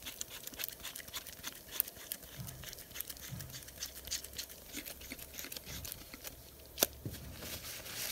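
Light clicks and rustling of gloved hands screwing the threaded front housing back onto a Rodac air drill's body, with a sharper click about seven seconds in.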